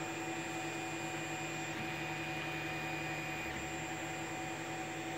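Creality CR-10 S5 3D printer running as it lays down the first layer of a bed-levelling test square: a steady hum with several held tones from its stepper motors and cooling fans.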